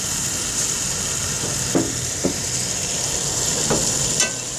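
Beef pieces sizzling steadily in oil and masala in a metal pot, at the bhuna stage where the meat fries in the fat it has released once the water has dried off. A metal spatula stirs through it, knocking or scraping against the pot four times.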